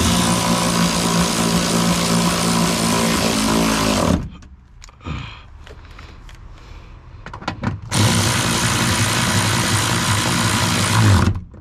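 Cordless power tool driving bolts, its motor running at a steady pitch in two bursts: one of about four seconds, then a second of about three seconds a few seconds later.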